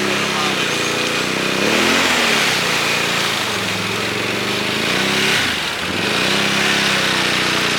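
Can-Am Outlander ATV engine running and being revved up and down several times, its pitch rising and falling. It is running again on a freshly re-pinned wiring-harness plug that had caused starting trouble.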